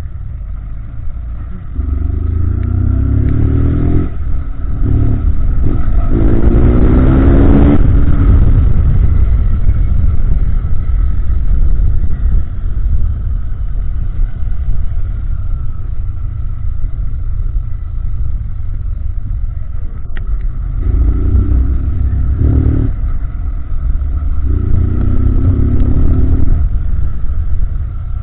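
Honda CG 160 Titan single-cylinder motorcycle engine accelerating hard through the gears, its note rising through several pulls, each cut short by a gear change, then running steadily before two more rising pulls near the end. The exhaust has a deep, loud note, which the rider likens to a BMW 310.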